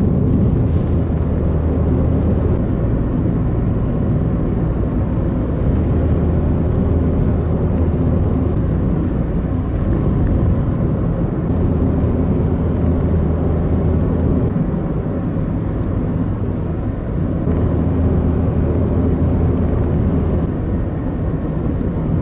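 Road noise inside a moving Toyota Vitz's cabin: a steady low rumble of tyres on the road with the engine running. It is first on studless winter tyres and, in the second half, on Yokohama BluEarth AE-01F summer tyres, which the driver finds sound better.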